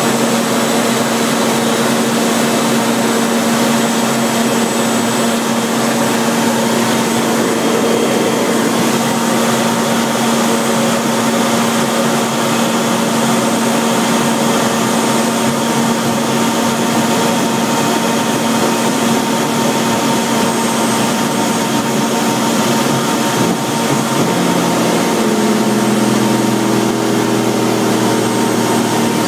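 BAC Strikemaster's Rolls-Royce Viper turbojet running at takeoff power, heard loud and steady inside the cockpit during the takeoff roll. A deeper hum joins about 25 seconds in, as the aircraft rotates.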